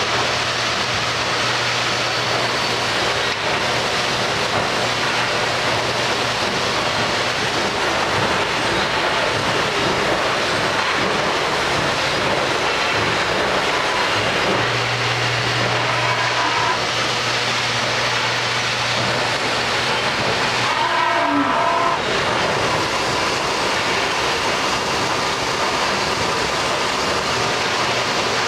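Miyano BND-34S CNC lathe running: a steady, loud machining noise with a low hum that fades out and comes back partway through, and a few short high tones near the two-thirds mark.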